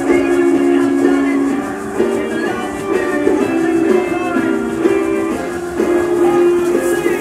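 Music: a song accompaniment of strummed plucked strings with held notes.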